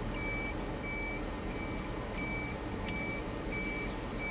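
An electronic beeper giving a steady high beep about one and a half times a second, each beep short and even, over a low steady rumble.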